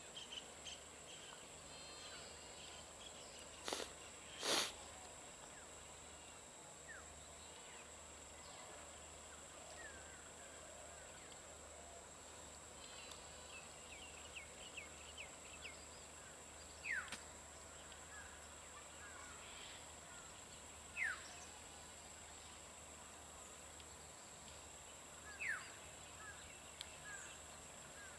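Faint rural outdoor ambience: a steady high insect buzz with scattered bird chirps and warbles, three sharp chirps in the second half. Two sharp knocks about four seconds in are the loudest sounds.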